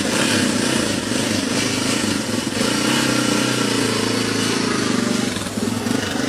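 Dual-sport motorcycle engine running steadily and loudly.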